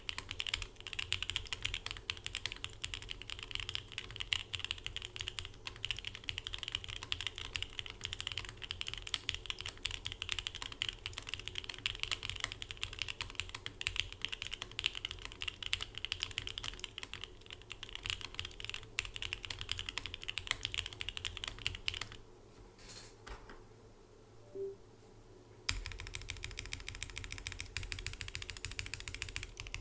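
Fast, steady typing on a custom gasket-mounted mechanical keyboard with an FR4 plate and lubed Jwick Red linear switches. The keystrokes break off for about three seconds a little over two-thirds of the way through, then start again.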